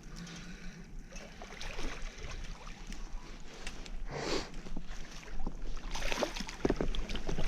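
River water and wind noise outdoors, with irregular knocks and rustles; a louder burst about four seconds in and another cluster of knocks near the end.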